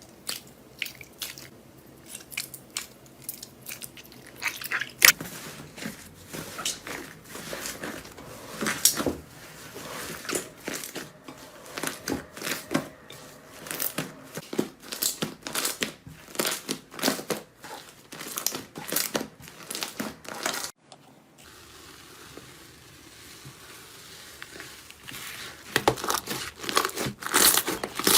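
Slime being squeezed and pressed by hand, making dense crackling and popping clicks. About two-thirds of the way through the sound cuts out briefly and stays soft for a few seconds, then loud crackling starts again near the end.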